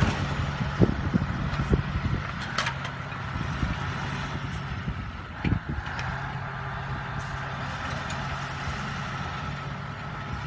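Steady engine and road noise heard from inside a truck cab at highway speed, with a constant low hum and a few short knocks and thumps in the first half.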